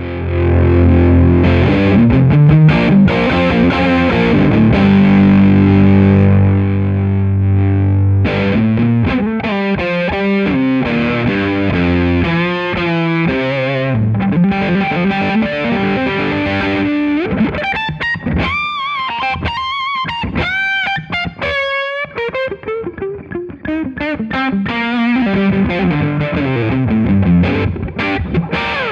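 Electric guitar played through a Tru-Fi Floyd Fuzz pedal: heavy, sustained fuzzed chords, then a single-note lead with high bent notes held with vibrato and a descending run, stopping near the end.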